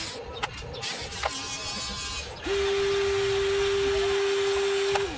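Electric gear motors of a toy RC excavator: a low whir with a few clicks for the first two seconds, then, from about two and a half seconds in, a loud steady whine as the upper body swings round, stopping just before the end.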